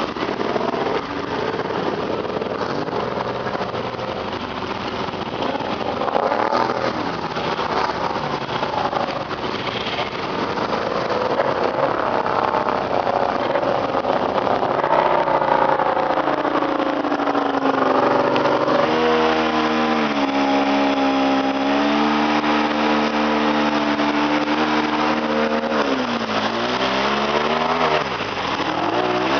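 ATV engine running under load and revving, its pitch wavering. In the second half it holds a steady, strong note, then drops sharply and climbs back near the end.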